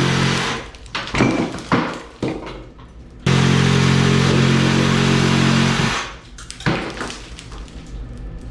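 A power tool cutting a vent opening through a sheetrock ceiling runs in two bursts with a steady motor pitch. The first burst stops about half a second in, a few knocks and taps follow, and the tool starts again suddenly for about two and a half seconds before a scatter of clicks and knocks.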